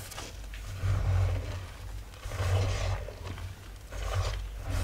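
Powdery oxichalk blocks crunching and crumbling in three bursts about a second and a half apart, each with a low thud beneath it.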